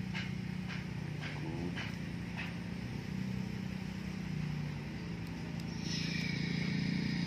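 Small electric motor of a toy RC dump truck humming as it drives over sand, with a higher whine joining about six seconds in and the hum swelling toward the end. A series of short high chirps, about two a second, comes in the first couple of seconds.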